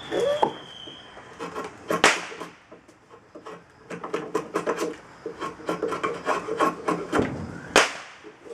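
Drawknife shaving green black locust on a shave horse, the blade scraping through the wood. Two long, loud pulls come about two seconds in and near the end, with a run of quick short strokes between them.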